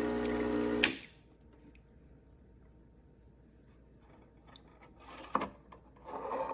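Espresso machine's vibratory pump buzzing steadily, then cut off with a sharp click under a second in. A few light clicks and a brief rubbing of handled parts follow near the end.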